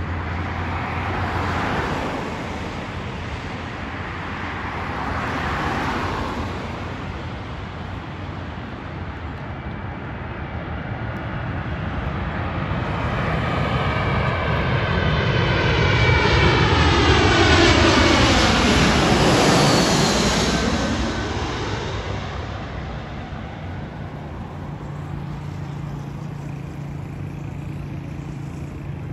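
Airbus A320 jet engines on landing approach passing low overhead. The sound builds to a loud peak about two-thirds of the way in and then fades, its whine sliding down in pitch as the plane goes by.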